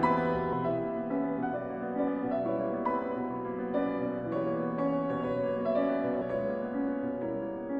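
Background piano music, a slow melody of held notes over a bass line.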